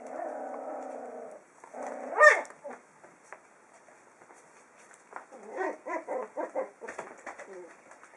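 Young puppies whining and yelping while they play: a held whine of about a second and a half, a sharp rising-and-falling yelp about two seconds in (the loudest), then a quick run of short yips.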